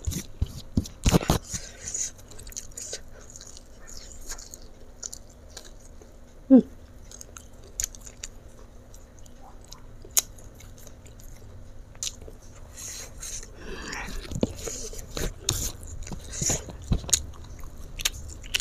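Close-miked chewing and biting: a person eating rice, fried mackerel and chili sambal by hand, with wet mouth clicks and smacks throughout. About six and a half seconds in there is one short, loud hum from the throat.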